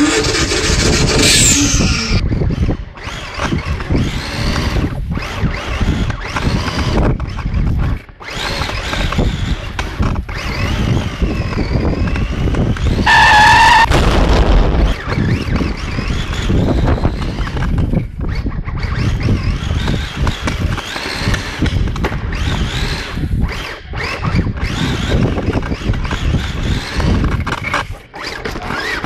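Added car sound effects of engine revving and tyre squeal over a radio-controlled drift car's run, with a rising rev in the first couple of seconds. A loud steady tone with overtones sounds for about a second and a half midway.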